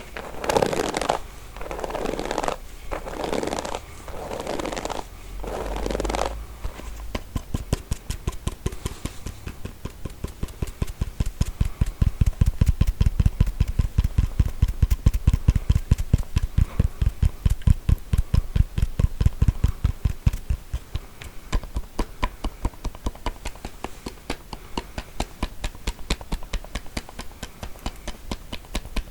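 Combs handled close to the microphone: about six slow scraping strokes a second apart, then from about seven seconds on a long, fast run of short clicks, several a second.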